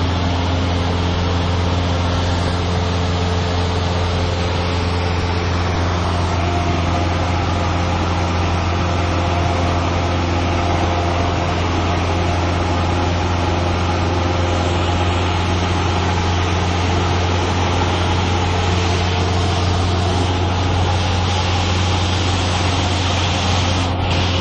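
Single-engine piston light aircraft's engine and propeller running steadily in flight, a constant low drone with a steady hum above it, heard inside the cabin.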